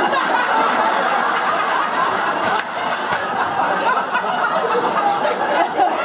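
Audience laughing loudly, a roomful of people bursting into laughter at once and carrying on steadily.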